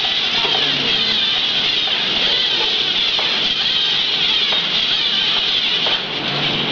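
LEGO Mindstorms NXT humanoid robot's motors and gear trains whirring steadily as it walks, with a few faint knocks from its feet or joints.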